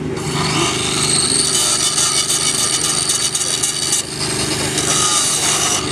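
Angle grinder grinding the steel rail beside a thermite weld joint, a steady high-pitched whine, easing off briefly about four seconds in and again near the end.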